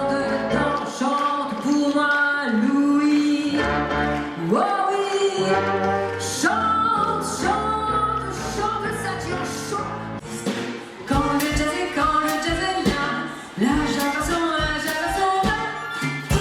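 A live band playing with a singer, sung lines sliding between notes over a bass line; about eleven seconds in, a steady drum beat comes in.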